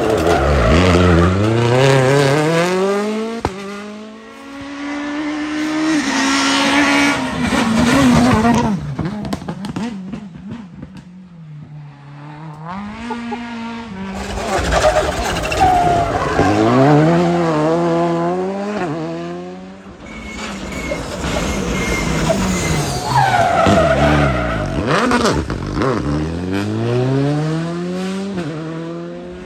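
Rally cars accelerating hard through the gears: the engine note climbs, drops back at each upshift and climbs again, several times over. It eases into a quieter lull about a third of the way through before the next car comes through at full throttle.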